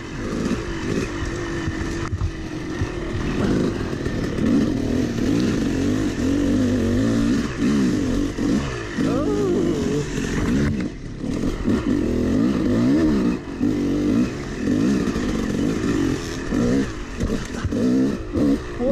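Yamaha YZ250 two-stroke dirt bike engine revving up and down as the throttle is worked over a rough, rutted trail, with brief dips where the throttle is chopped.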